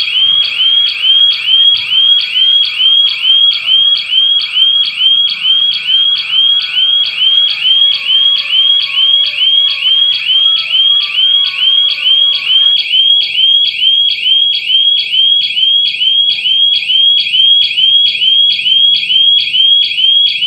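Burglar alarm's electronic siren sounding after a security breach, a loud rising chirp repeated about three times a second without a break.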